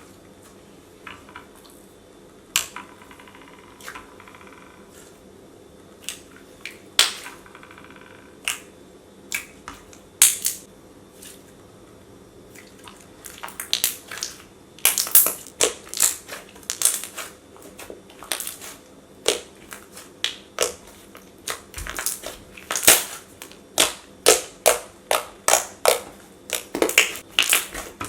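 Thick, glossy slime being squeezed and pressed by hand, making sharp clicks and pops. They are sparse at first, then come several a second from about halfway through.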